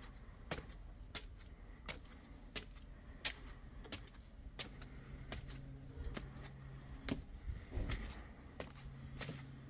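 Footsteps of shoes on stone steps and paving, a sharp even step about every three quarters of a second while climbing.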